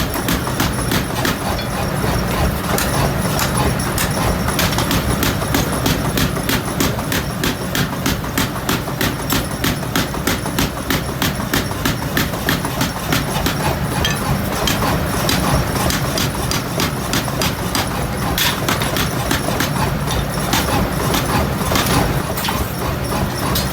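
Hammer blows striking metal in a rapid, steady rhythm, several a second, over a steady low hum.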